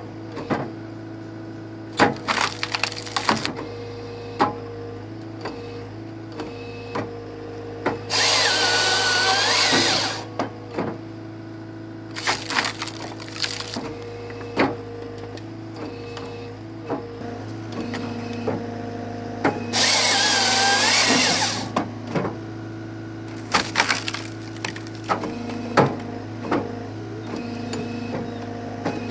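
Halverson 140 firewood processor working off a Cat 299 compact track loader: the loader's diesel engine and hydraulics run steadily while the processor's hydraulic saw bar cuts through a log twice, each cut about two seconds long, about 8 and 20 seconds in. Between the cuts there are many sharp cracks and knocks as wood is split and the split pieces drop.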